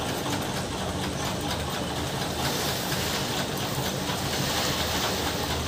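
A steady mechanical hum and hiss throughout, with the rustle of rice paddy seed being scooped in a basket and poured into a sack.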